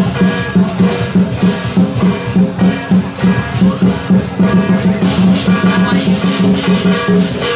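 Lion dance percussion: a big drum beating a fast, even rhythm with crashing cymbals over it.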